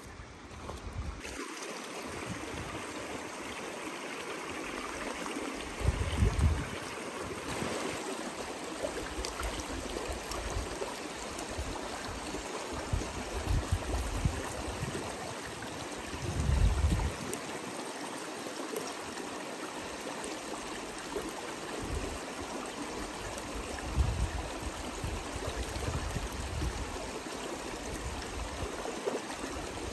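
Shallow mountain stream rushing steadily over stones, starting about a second in, with a few brief low rumbles about 6, 16 and 24 seconds in.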